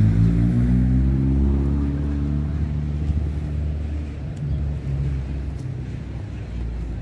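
A motor vehicle's engine running, its pitch climbing over the first two seconds as it accelerates, then the sound gradually fades as it moves away.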